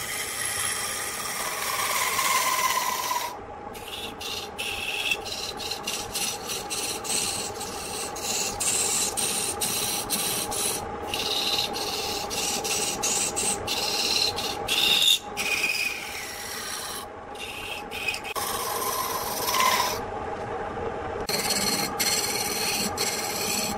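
Hand-held chisel cutting a large spinning wood blank on a homemade lathe: a continuous rasping scrape of steel on wood, over the steady hum of the lathe's electric motor. The scraping breaks off briefly a few times, longest about three quarters of the way through.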